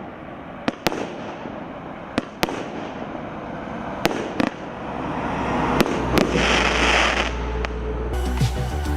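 Hallmark Fireworks 'Sting in the tail' firework going off: sharp bangs every second or so over a steady crackle, with a dense burst of crackling about six seconds in. Music comes in near the end.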